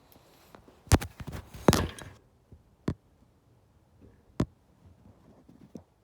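Several sharp knocks and clicks: a loud cluster with some rustling from about one to two seconds in, then single sharp clicks near three seconds and four and a half seconds.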